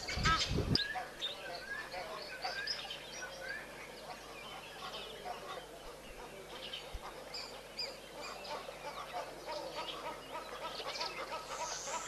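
Loud honking calls with a low rumble cut off within the first second. Then a busy chorus of many small birds chirping and whistling, with a quick run of repeated notes joining in near the end.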